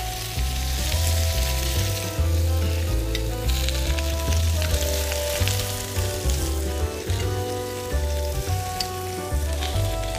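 A frying pan sizzles steadily with spiny lobster halves and spinach leaves in it. Under it plays background music with a bass line that steps from note to note.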